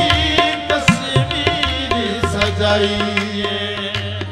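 Harmonium and tabla playing a manqabat in qawwali style: held harmonium notes over quick tabla strokes, with a steady low note joining about halfway through.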